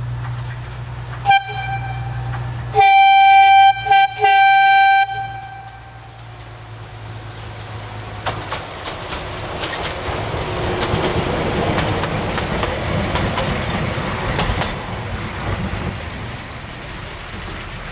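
A 1960-built MÁV Mk48 diesel-hydraulic narrow-gauge locomotive sounds its horn as it approaches: a short toot about a second in, then a longer, louder blast broken twice. The locomotive and its carriage then pass close by, with engine noise and wheel clatter on the rails building up and fading away near the end.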